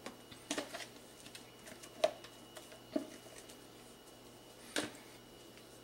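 Spatula folding whipped egg whites into soufflé pancake batter in a bowl: a handful of short, soft taps and scrapes of the spatula against the bowl, the sharpest about two and three seconds in, with a faint steady hum underneath.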